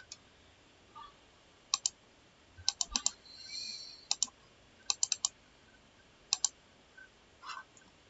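Computer mouse buttons clicking in a string of quick double-clicks.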